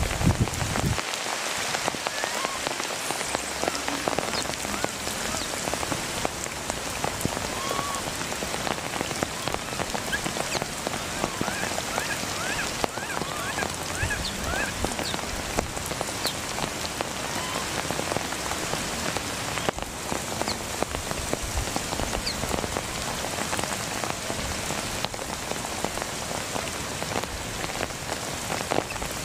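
Steady rain falling on palm fronds, leaf litter and puddles, with a scattering of faint short rising chirps near the middle.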